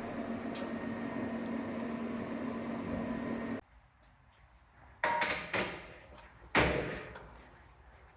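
Background music that cuts off abruptly, followed by three sharp metallic knocks with short ringing tails as metal workshop parts are handled.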